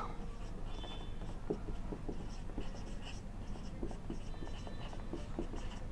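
Marker pen writing on a whiteboard: a run of soft scratchy strokes and ticks, with two brief high squeaks of the felt tip, one about a second in and one later on.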